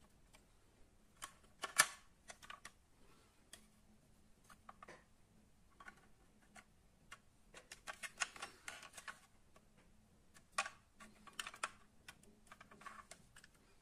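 Irregular small clicks and taps of a die-cast metal and plastic toy fire truck being handled and turned over in the hands. The sharpest tap comes about two seconds in, with busier clusters of clicks around the middle and near the end.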